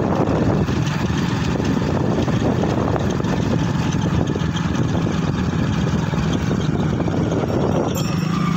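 Motorbike engine running while riding along, mixed with heavy wind rumble on the microphone.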